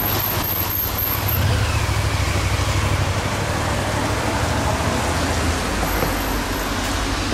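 Low, uneven rumble of a motor vehicle's engine, swelling about a second and a half in and then easing off.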